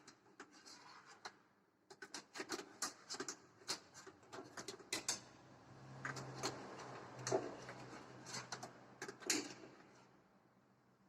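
Irregular small metallic clicks and knocks as a telescopic magnetic pickup probes inside a car's rear body cavity to retrieve a dropped socket.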